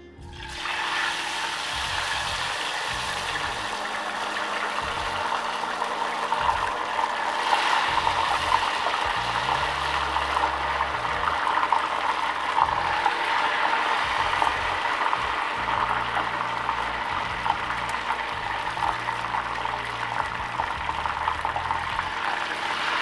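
Frozen, cornstarch-battered potato wedges deep-frying in hot oil in a small saucepan: a steady sizzle that starts abruptly as the first pieces go in.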